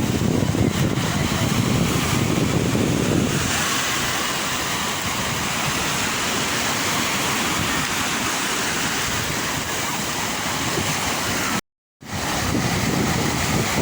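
Sea waves washing and breaking as a steady rush of surf, with wind rumbling on the microphone in the first few seconds and again near the end. The sound cuts out completely for a moment shortly before the end.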